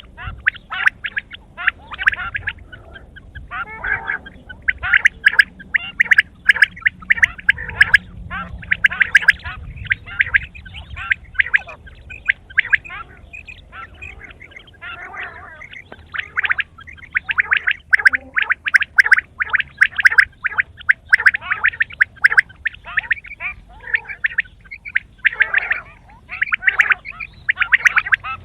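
Quail calling in dense runs of short, rapid notes, with a thinner stretch near the middle.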